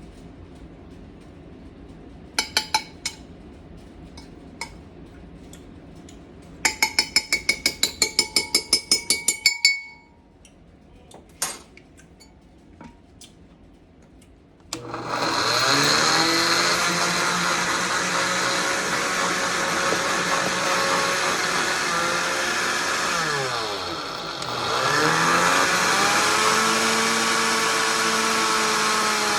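Countertop blender running at speed, its motor pitch sagging and recovering as it works through the mix; it briefly drops out and starts again about ten seconds after starting. Before it starts there are a few sharp clicks, then a quick run of rapid clicking, about eight a second.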